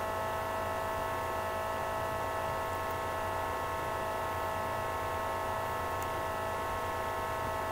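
Steady electrical hum and hiss: a background noise floor with several fixed tones, unchanging throughout.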